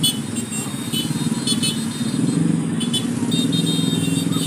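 Small motorcycle engines running steadily in busy road traffic.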